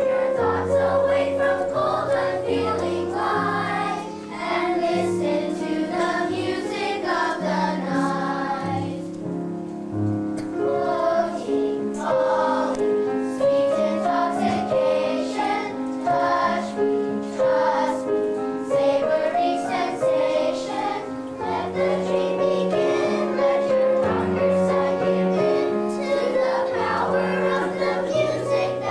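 Children's choir singing a song with instrumental accompaniment: long held notes over a steady bass line.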